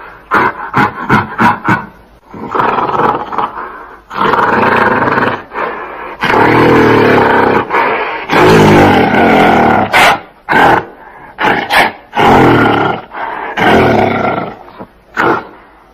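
Gorilla calls: a quick run of short calls in the first two seconds, then a series of long, loud roars with a few short barks between them.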